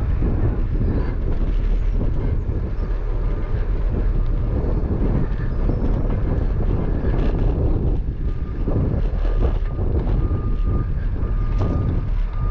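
Low rumble of wind buffeting an action camera's microphone and bicycle tyres rolling on pavement, with small rattles and clicks. A faint broken high tone comes in during the second half.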